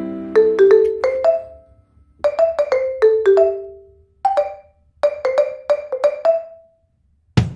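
Background music: a light tune of short struck notes on a marimba-like mallet instrument, played in phrases with brief pauses between them. A near-silent gap comes shortly before the end, then the music comes back with a stronger low beat.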